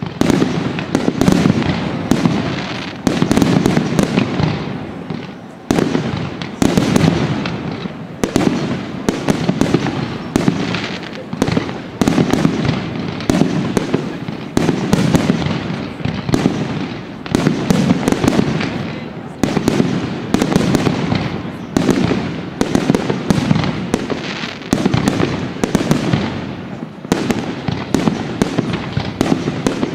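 Fireworks display: a continuous barrage of shell bursts, several loud bangs a second, each ringing out with echo.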